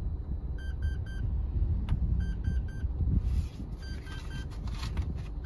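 A car's warning chime beeping in quick sets of three, about every one and a half seconds, over a low steady rumble in the cabin. Paper banknotes rustle as they are counted, about three seconds in.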